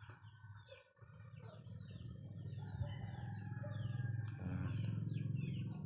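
Birds chirping in a quick series of short falling notes, over a steady low rumble.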